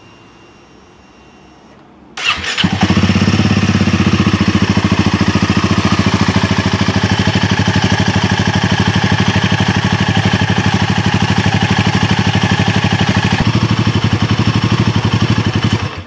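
Royal Enfield Himalayan 450's single-cylinder engine started about two seconds in, then running steadily with an even pulsing beat until it is switched off at the very end. It is being run briefly after an oil and filter change, before the oil level is rechecked in the sight glass.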